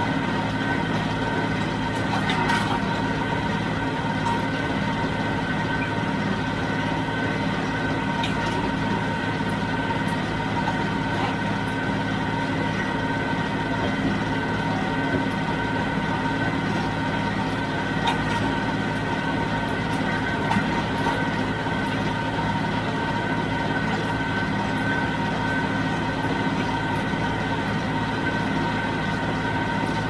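John Deere 5055D tractor's three-cylinder diesel engine running steadily under load, driving a John Deere 348 square baler. A constant drone with a steady high whine and a few faint knocks.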